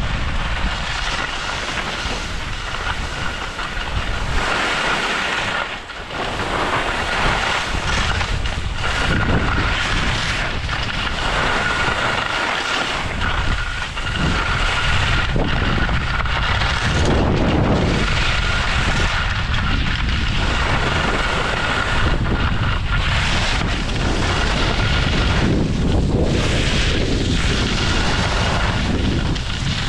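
Wind rushing and buffeting over the microphone of a camera carried downhill by a moving skier, with the hiss and scrape of skis sliding over packed snow.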